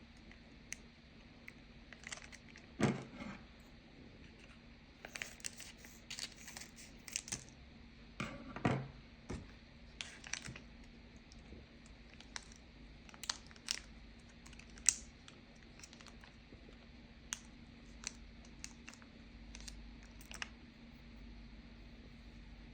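Small objects being handled at close range: scattered clicks, taps and crinkles, with two louder knocks about three and nine seconds in.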